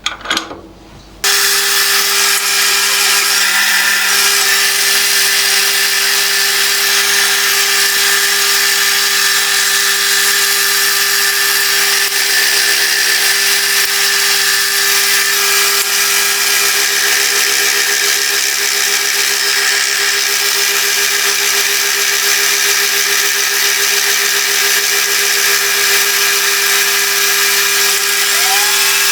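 Milling machine running with a fly cutter facing a metal block: a steady hum over a steady hiss, starting abruptly about a second in.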